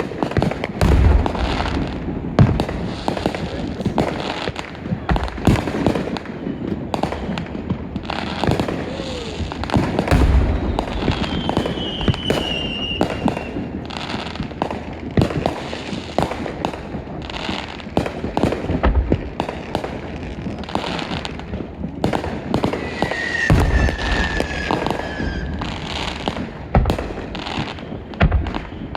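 Fireworks going off nonstop: a dense run of sharp bangs and crackles, with deep booms every several seconds and two long whistles that fall slightly in pitch.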